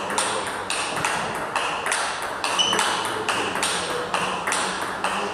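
Table tennis rally: the ball clicking off the rackets and the table in a quick, even run of about three hits a second, echoing in a sports hall.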